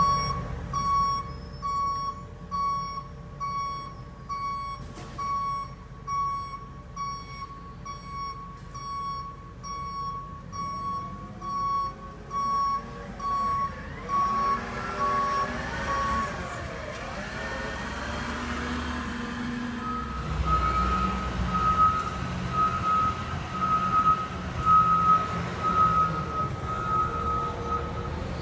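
Construction vehicle reversing alarm beeping at a steady pitch about once a second over diesel engine rumble, stopping about sixteen seconds in. After a few seconds of rising and falling engine and machinery tones, a second, slightly higher-pitched reversing alarm starts beeping about twenty seconds in.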